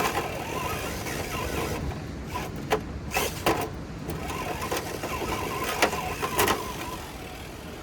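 Small electric motor and gearbox of an RC rock crawler whining as it drives over rock, with a few sharp clicks and knocks spread through.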